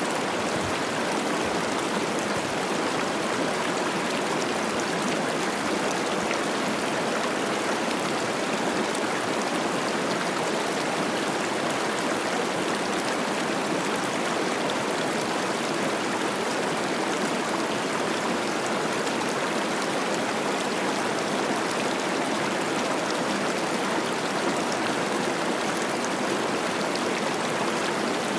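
Cache la Poudre River, running high with spring snowmelt, rushing and babbling over rocks in a steady wash of water noise.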